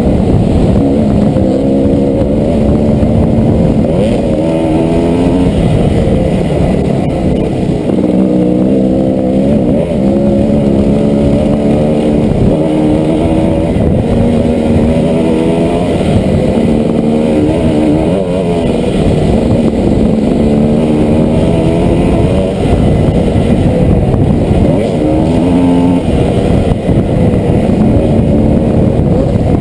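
Dirt bike engine under way on a trail, heard from the rider's own bike. Its pitch climbs and drops back again and again as the throttle is opened and closed.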